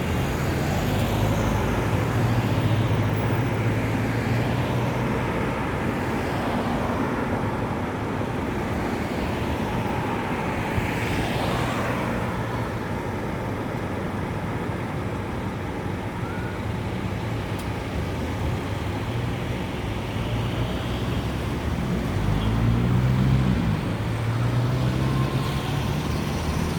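Road traffic: a steady stream of cars and heavier vehicles passing, with a low engine hum throughout. A passing vehicle swells about halfway through, and near the end one vehicle's engine note rises and then falls as it goes by.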